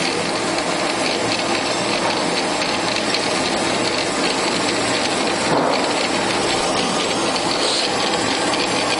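Qualters and Smith Sawmaster automatic horizontal bandsaw running steadily as its saw head feeds down to begin the next cut of its automatic cycle.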